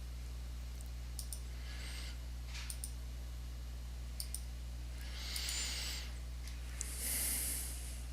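Computer mouse clicking three times, each a quick double tick, as points of a line are placed on a map. Breaths close to the microphone come between the clicks, the loudest near the end, over a steady low electrical hum.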